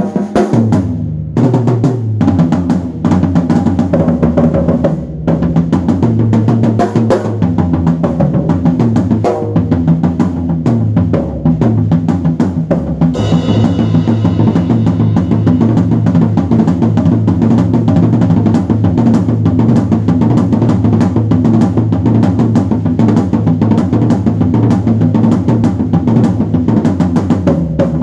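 Drum kit played busily, with rapid kick, snare and cymbal hits over sustained low notes that step from pitch to pitch. A brighter wash like cymbals comes in about 13 seconds in.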